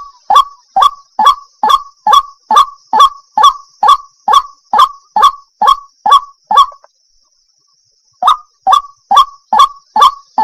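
Waterhen calling: a fast run of short, sharp, honking calls, about two and a half a second, that breaks off past the middle and starts again after a second and a half, over a faint steady high hiss.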